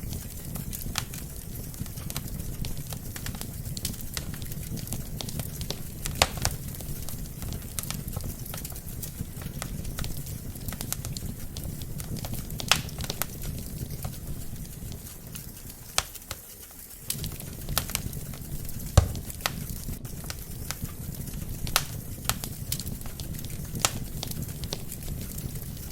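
Wood fire burning in a fireplace: irregular sharp crackles and pops from the logs over a low steady rumble of the flames. The rumble dips briefly about two-thirds through, and a louder pop with a low thud follows soon after.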